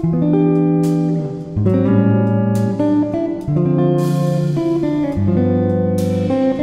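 Background music led by guitar, with held chords whose low notes change every second or so and a sharp strike every one to two seconds.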